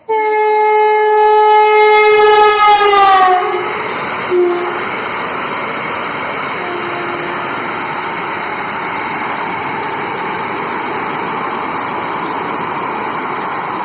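Vande Bharat Express electric train sounding its horn, a loud held chord that drops in pitch after about three seconds as the train rushes past. The horn gives way to a steady rushing roar of the coaches passing at speed.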